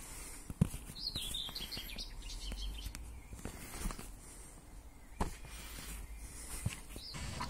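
Small birds chirping in the background, a short burst of calls about a second in and another near the end, over a low rumble. A few soft knocks sound among them, the sharpest just over half a second in.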